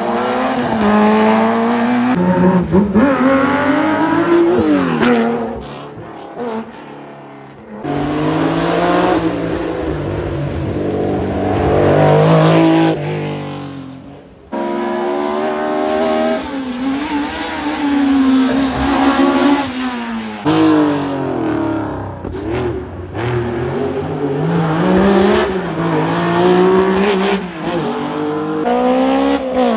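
Historic rally cars at full throttle, several passes cut together: engine pitch climbs hard and drops again and again as the drivers change gear and lift for corners.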